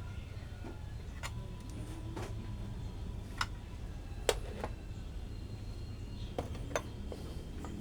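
Scattered light clicks and knocks, about eight of them, the sharpest about four seconds in, over a steady low hum.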